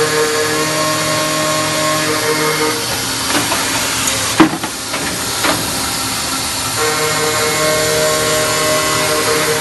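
Automatic carbide cold saw cutting metal bar stock: a steady whine from the blade through each cut, twice, each about three seconds long, with knocks and one sharp clank between the cuts. A steady hiss runs under it all.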